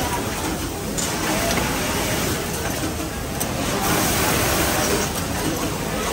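Steady machinery din of a garment factory floor, with faint voices in the background.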